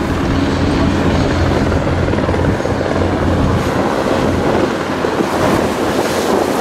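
Steady drone of a harbor tour boat's engine under way, with a rush of wind and water over it.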